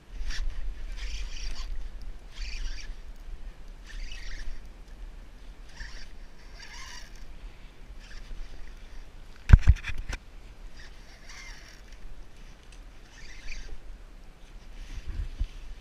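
Small waves slapping against the plastic hull of a Hobie Revo 13 kayak in short splashy bursts about every second, over a low wind rumble on the microphone. One sharp knock on the kayak about two-thirds of the way through.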